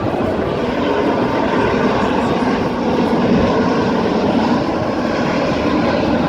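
Airbus A350 XWB airliner's Rolls-Royce Trent XWB turbofan engines, a steady jet noise with a faint whine as the plane flies by, swelling slightly near the middle.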